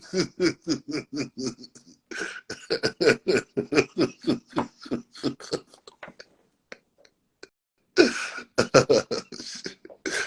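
A man laughing hard in rapid breathy pulses, about four or five a second, in two long runs broken by a quiet stretch, then bursting out again about eight seconds in.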